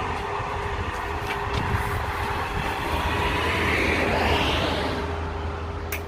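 MIG 125 welder's arc crackling and buzzing steadily during a weld, with the current set too high. It stops near the end.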